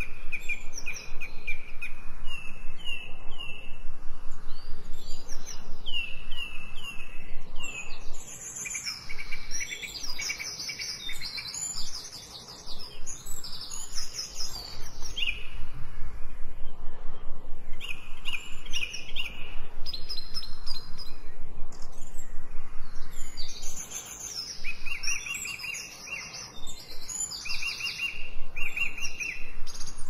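Songbirds singing, several at once, in quick runs of repeated short chirps and trills.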